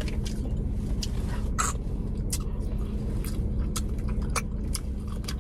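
Someone eating a sauced seafood boil with their fingers: wet smacking and clicking mouth sounds from chewing, over a steady low hum.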